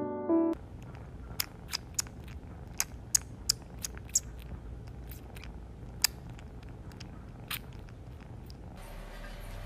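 Kitten nuzzling and mouthing at a person's chin close to the microphone: a dozen or so irregular sharp little mouth clicks and smacks over a low steady purr.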